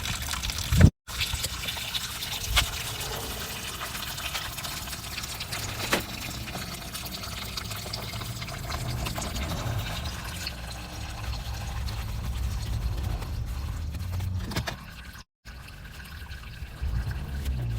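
Liquid pouring and trickling steadily, cut off briefly twice.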